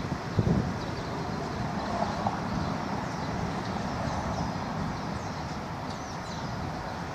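Outdoor city ambience: a steady low rumble of distant traffic, with a few small birds chirping faintly and a brief gust of wind on the microphone near the start.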